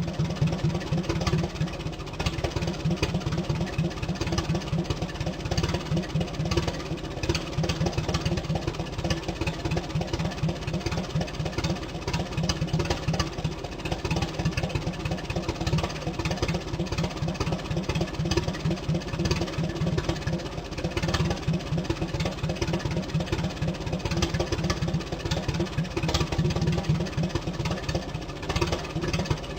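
Tractor engine running steadily at idle, with a fast, even chugging throughout.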